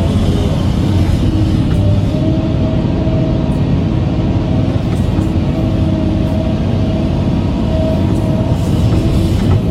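Excavator's diesel engine running with a steady low rumble, with music laid over it.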